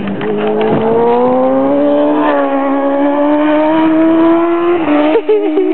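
Racing motorcycle engine running hard at high revs, its pitch climbing steadily as it accelerates. A brief break in the note about five seconds in is a gear change.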